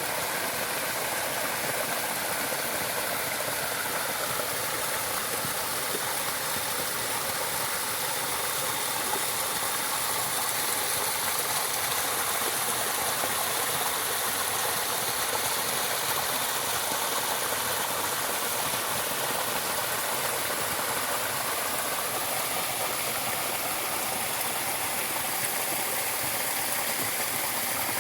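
Steady rush of running water, an even hiss that holds level throughout with no breaks.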